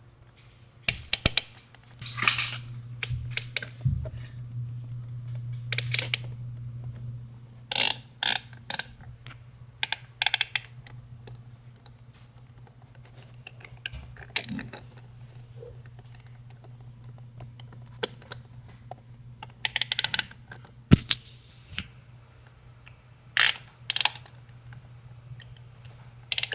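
Plastic toy pieces clicking and rattling as they are handled, in scattered clusters of sharp clicks, over a faint low hum.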